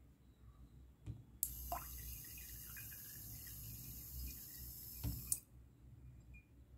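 Small DC water pump switched by a relay. After a click about a second in, the pump starts with a thin, steady high whine and water trickles from its tube into a jar. After another click about five seconds in, it cuts off suddenly.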